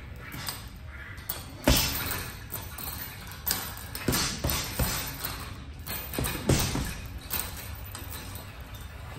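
Boxing gloves landing on a hanging heavy bag: sharp slapping thuds, some single punches and some in quick combinations of two or three, the loudest about a second and a half in.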